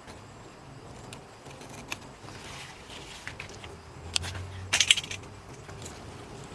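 Light clicks and clatter of kitchen utensils being handled, with a cluster of sharp, louder clicks about five seconds in.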